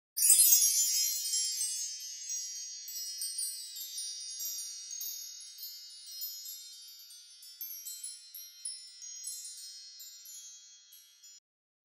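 Fairy dust sound effect: a shower of high, bright chime-like tinkles that starts loud and sparkles on, thinning out over about eleven seconds before stopping.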